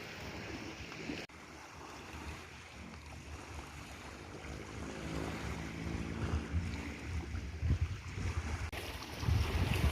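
Sea waves washing, with wind buffeting the microphone in low gusts that grow stronger toward the end. A faint low hum sits under it for a few seconds in the middle.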